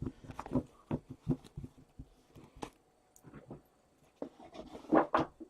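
Hockey trading cards and foil pack wrappers being handled: a scatter of soft ticks, slides and rustles, with a louder cluster about five seconds in.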